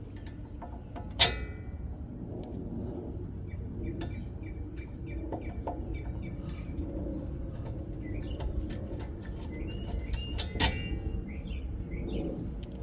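Two sharp metal-on-metal clinks, each with a short ring, about a second in and again near the end, as brake parts and tools are handled. Birds chirp through the background.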